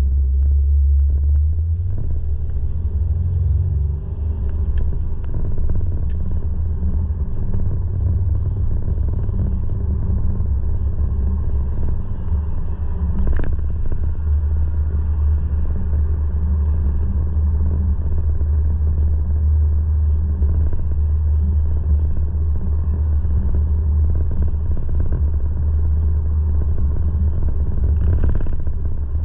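A steady, loud low rumble with a faint hiss above it and one or two brief clicks.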